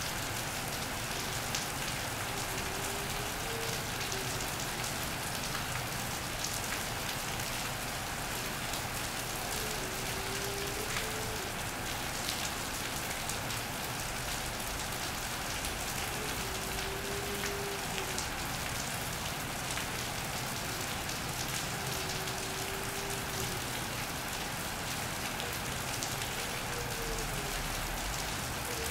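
Steady rain on an iron roof, with many separate drops ticking. A Eurasian collared dove coos faintly behind it, a low call repeated about every six seconds.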